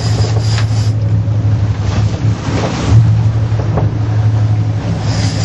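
Sportfishing boat's engines running with a steady low drone, wind buffeting the microphone.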